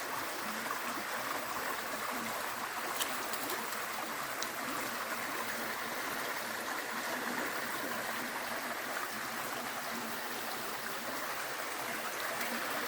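Running water babbling steadily, as a small stream flows over stones.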